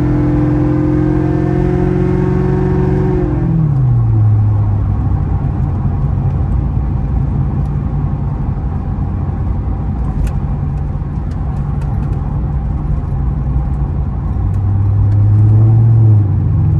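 Ford Crown Victoria Police Interceptor's 4.6-litre V8 heard from inside the cabin while driving: a steady engine drone that slides down in pitch about three seconds in, then settles under road and tyre noise. Near the end the engine note rises and steps up again.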